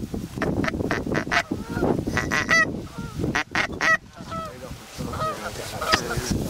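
Goose honking: many short, clipped honks in quick succession, over wind rumble on the microphone.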